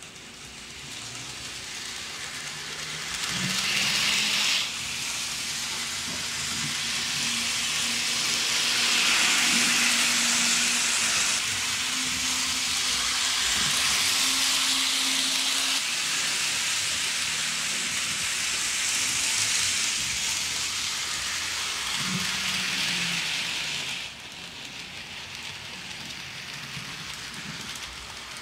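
N scale model train running on its track: a steady hiss of small metal wheels rolling on the rails, with a faint motor hum from the die-cast Reading T1 4-8-4 steam locomotive. It grows louder about four seconds in and drops back about 24 seconds in.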